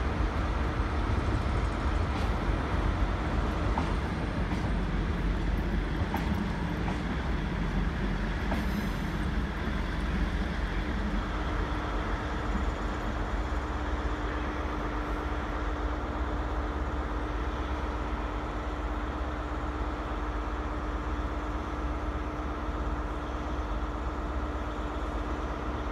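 Diesel trains running at the station: a steady low engine rumble with a constant hum, as a departing train draws away down the line.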